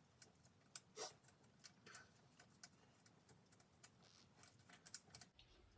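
Faint, irregular metallic clicks and taps from a tire iron and lug nuts as the lug nuts are worked off a wheel, one tap a little louder about a second in.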